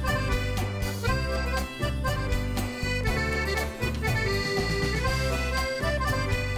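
Instrumental background music led by an accordion, with a bass line underneath.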